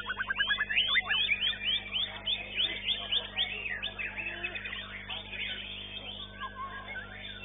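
White-rumped shama (murai batu) singing: a fast run of repeated notes in the first second, then a stream of quick, varied, downward-slurred whistles that grows quieter toward the end. A faint steady hum lies underneath.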